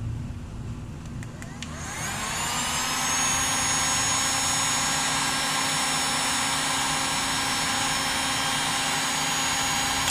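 Heat gun's fan motor switching on about two seconds in, its whine rising quickly to a steady pitch and running steadily while it shrinks heat-shrink tubing over a crimped wire ferrule, then winding down at the end.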